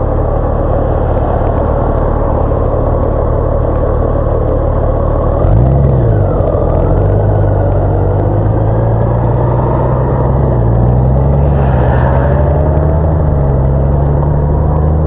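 Large touring motorcycle's engine running at low speed, first held near idle and then pulling away, its pitch rising gradually as it gains speed.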